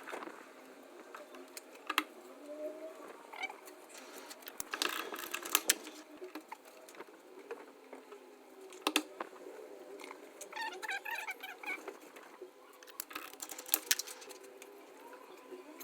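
Handling noises from plumbing work on a gas combi boiler installation: scattered sharp clicks and knocks of tools and fittings, with a short run of chirps about eleven seconds in.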